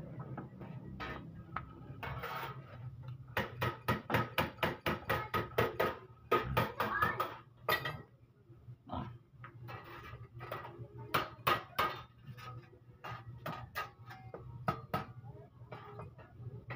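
Small parts and tools being handled: quick runs of light clicks and clinks, a dense run of about five a second a few seconds in and another cluster near the two-thirds mark, over a low steady hum.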